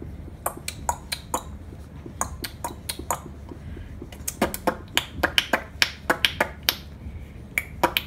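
Irregular sharp taps and clicks of a hand working oil pastel on paper on a drawing board, several a second and coming faster after about four seconds.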